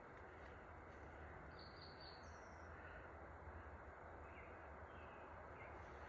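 Near silence: faint steady outdoor background noise, with a couple of faint high bird chirps about two seconds in.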